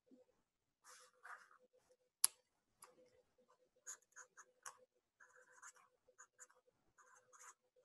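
Faint irregular clicks and taps, with one sharper click about two seconds in, over a faint steady hum.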